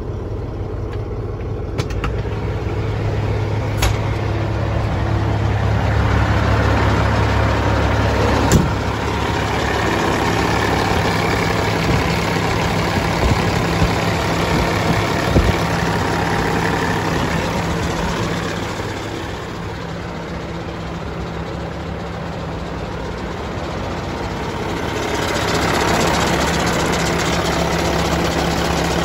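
Caterpillar C15 inline-six diesel in a Peterbilt 379 idling steadily, warmed up but not yet at full operating temperature, heard close up at the open engine bay for much of the time. A few sharp knocks sound in the first several seconds.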